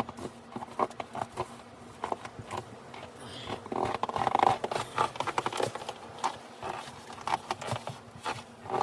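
Irregular crunching and scraping in deep snow, a rapid uneven run of short crunches with a louder cluster about four seconds in.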